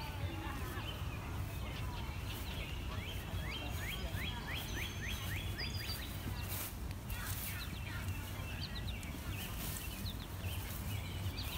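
Small birds chirping outdoors, one of them repeating a quick note about four times a second for a couple of seconds, over steady low background noise.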